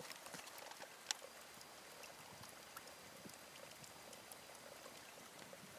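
Near silence: a faint outdoor hiss with scattered small ticks, and one sharper click about a second in.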